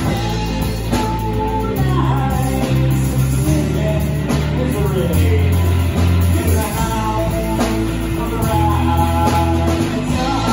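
A rock band playing live: electric guitar, electric bass and drum kit, with a man singing over them.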